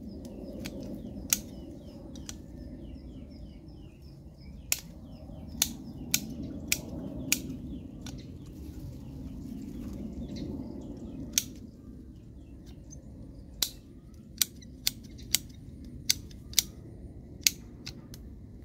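Pruning shears snipping twigs off a mai chiếu thủy (Wrightia religiosa) bonsai: about fourteen sharp snips at irregular intervals, with small birds chirping faintly.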